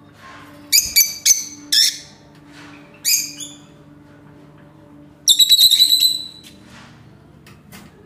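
Rosy-faced (peach-faced) lovebirds calling in high-pitched chirps: four quick calls about a second in, a single call near the middle, and a rapid run of chirps a little past five seconds.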